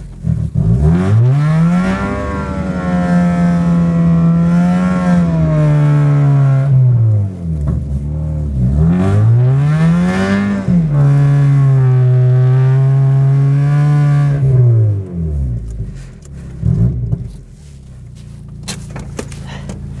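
Mazda Miata's four-cylinder engine revved up and held at high revs twice, several seconds each, while the rear wheels spin in deep snow and the car stays stuck. It drops back to a low idle near the end.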